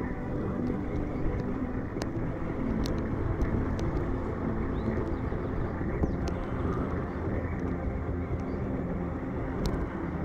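Axial Ryft 1/10-scale electric RC rock bouncer driving on sand, heard from its onboard camera: a continuous rough rumble of motor and drivetrain noise with a few sharp clicks.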